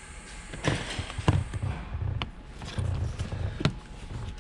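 Several sharp plastic clicks and knocks with low bumps in between, from interior trim pieces and wiring being handled and fitted.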